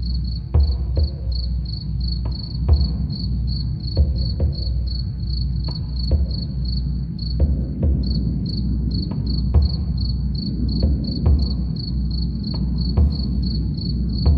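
A cricket chirping steadily in a fast, even pulse of high chirps, about four a second, over a deep drum beating softly in pairs roughly every second and a half. A constant low hum runs underneath.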